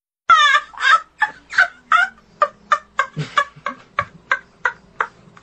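A quick series of about fifteen short, pitched animal-like calls, about three a second. The first few are fuller, and they grow shorter and more clipped as they go.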